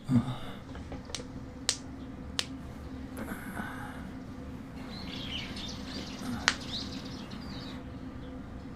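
Quiet ambience with a steady low hum, a few sharp clicks and short bird-like chirps.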